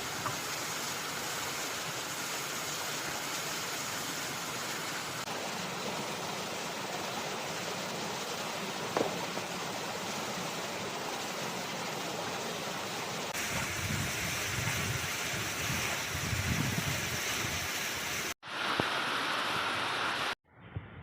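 Steady rush of flowing water, an even hiss across the whole range. About two-thirds of the way through it turns heavier and lower, with uneven swells, and near the end it breaks off abruptly twice.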